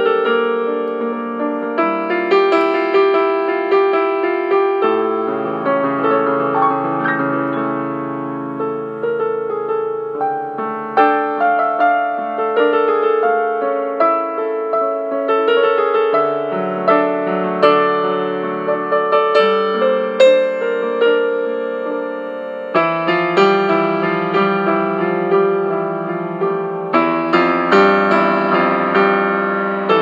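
Solo piano music: a calm, classical-style piece of sustained chords and a flowing line of notes.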